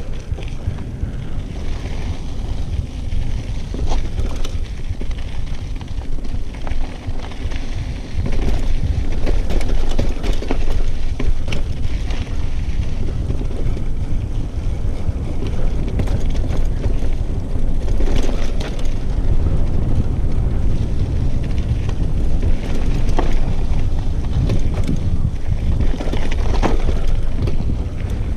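Wind buffeting a GoPro Hero 5's microphone with a heavy low rumble, over a mountain bike rolling down a dirt singletrack: tyre noise on dirt with scattered knocks and rattles as the bike goes over bumps. It gets louder from about eight seconds in.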